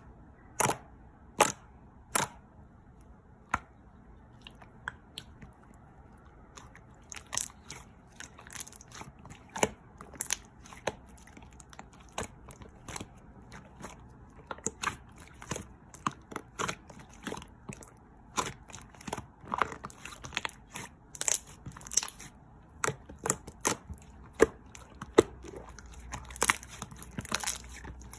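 Soft cream slime being squeezed and poked by hand, giving irregular sharp clicks and crackling pops. The pops are sparse at first and come thick and fast from about a quarter of the way in.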